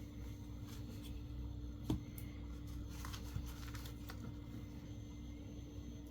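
Small clicks and taps from handling phone parts during reassembly, with one sharp click about two seconds in, over a steady low hum.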